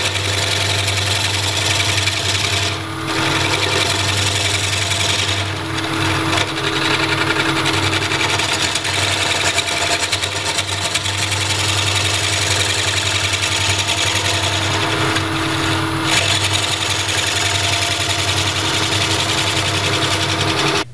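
Bowl gouge making light cuts on the end of a hard, dry barn-beam blank spinning on a Powermatic wood lathe: a steady hiss of the cut over the lathe motor's hum, easing off briefly a few times as the tool is lifted and reset.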